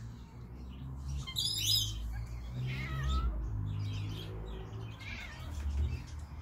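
Domestic cats and kittens meowing repeatedly, several separate calls, begging to be fed.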